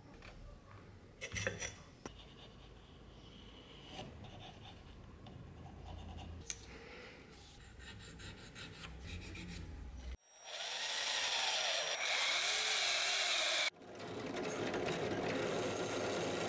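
A bench drill press drilling through the steel tang of a machete, most likely making rivet holes for the new handle. It runs in two spells of steady drilling noise with a motor whine, starting about ten seconds in. Before that there is faint scraping and handling of tools and wood on the workbench.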